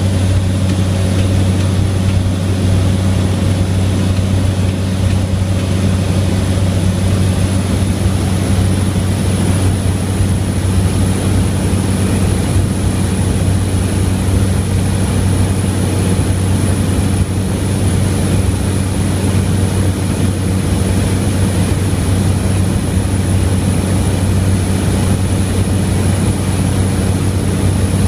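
A small propeller airplane's engine and propeller running steadily in flight, heard loud from inside the cockpit. It is a constant deep hum with a second hum an octave above it, over a thin high whine.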